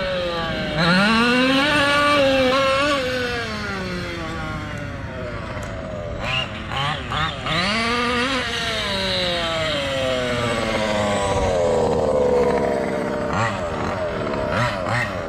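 MCD XR5 1/5-scale gas RC buggy's two-stroke engine revving up and down as it is driven, its pitch rising and falling in several long sweeps.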